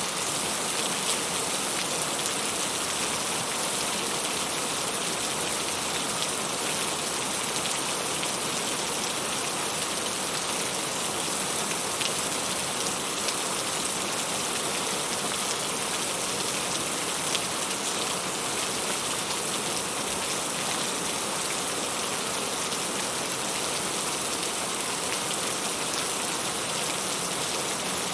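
Heavy rain falling steadily, a dense even hiss with many individual drops spattering on surfaces.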